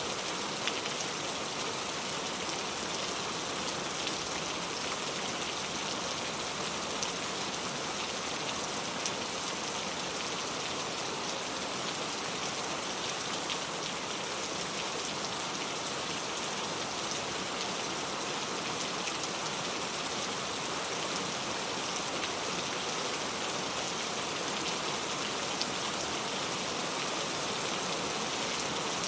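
Steady rain falling, a dense even hiss with scattered faint drop ticks.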